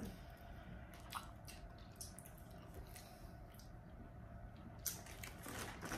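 Faint, scattered clicks and crackles of crab-leg shells being cracked and picked apart by hand, with some chewing.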